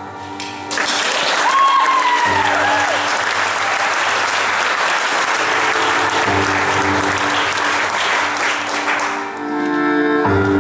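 Audience applauding over the performance music, the clapping starting just under a second in and dying away near the end, with a brief rising-and-falling whistle or whoop early on.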